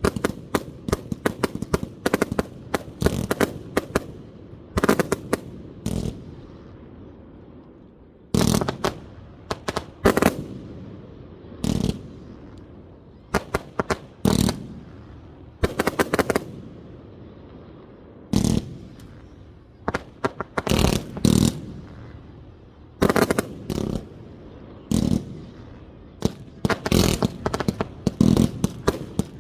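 Professional 1.3G display fireworks firing from 100-shot basins: a rapid crackling volley of sharp reports at first, then heavy bangs in clusters every second or two, and another dense rapid volley near the end.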